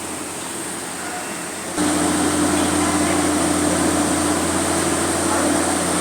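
Steady mechanical hum and rumble of the Skyrail gondola cableway's terminal machinery, getting abruptly louder about two seconds in.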